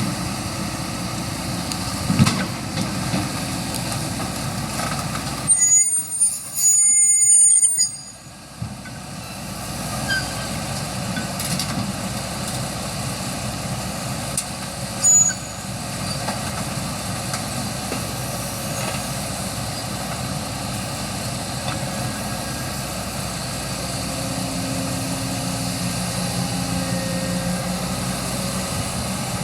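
Heavy diesel engine of a Kobelco excavator running steadily, with a loud high-pitched squeal lasting about two seconds starting about six seconds in, and a few sharp knocks.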